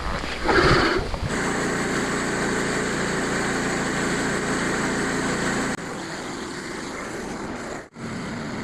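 Portable sawmill's small gasoline engine running steadily; about six seconds in the sound drops to a quieter, even hum, and it cuts out for an instant near the end.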